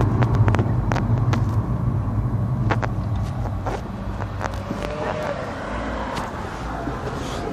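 Car running, heard from inside the cabin: a steady low engine-and-road rumble that slowly eases off, with scattered light clicks and rattles over it.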